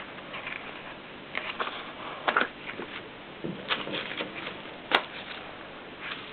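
1925 Mignon index typewriter being typed on: irregular clicks and taps from its mechanism, with one sharp click about five seconds in.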